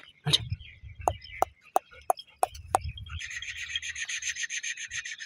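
Low rubbing and scuffing with a series of sharp clicks, then a bird's fast, even trill starting about three seconds in.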